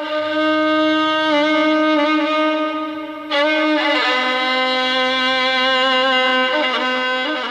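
Background film score led by a violin playing a slow melody of long held notes, with a new note coming in sharply about three seconds in.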